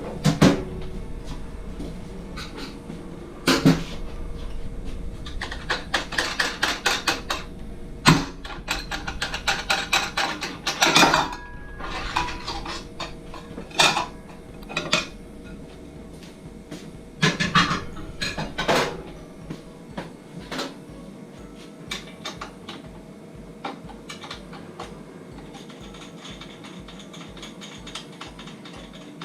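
Metal parts of a meat slicer clanking and knocking as they are handled during disassembly, with quick runs of clicking about a third of the way in, then lighter, sparser taps in the second half.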